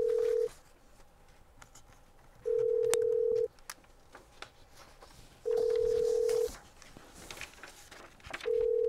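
Telephone ringback tone: a steady beep about a second long, repeating about every three seconds, signalling that the called phone is ringing and has not yet been answered.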